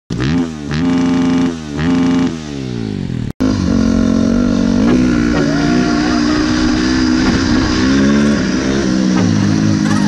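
Enduro dirt bike engine revved up twice and then winding down. After a brief break, it runs under way at road speed, its pitch dipping and climbing with throttle and gear changes.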